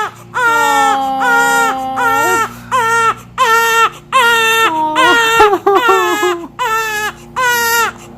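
Newborn baby crying hard, a string of high wails about one a second with quick breaths between them, upset at having his diaper changed.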